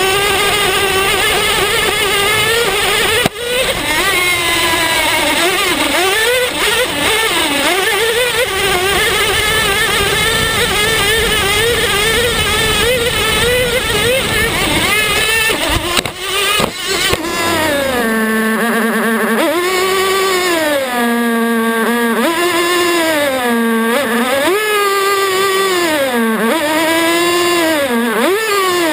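Traxxas T-Maxx RC truck's small nitro (glow-fuel two-stroke) engine screaming at high revs as the truck is driven over rough grass, with a couple of sharp knocks about three seconds in and around sixteen seconds in. In the last ten seconds the engine revs rise and fall in smooth repeated swells without the rumble of driving, as the rolled truck lies on its side in the grass.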